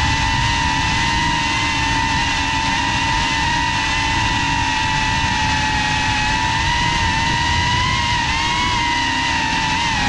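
Geprc FPV quadcopter's brushless motors and propellers whining at a steady, high pitch, wavering slightly higher with throttle about eight seconds in, over wind rushing on the drone-mounted GoPro's microphone.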